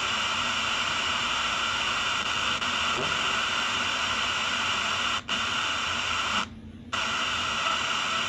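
Steady static hiss from the Legenda P-305T radio-cassette recorder's speaker, its radio tuned between stations with poor reception. The hiss cuts out briefly twice, the second time for about half a second.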